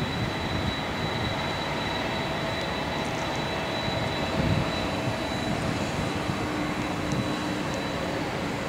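Jet airliner engines running across the airfield: a steady rushing noise with a thin, constant high whine.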